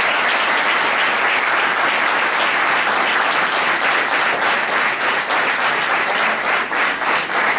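Applause: a group of people clapping, a dense, even patter of many hands kept up steadily.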